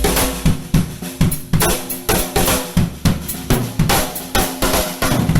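Rock drum kit playing a steady beat, with bass drum and snare hits, over a steady low tone.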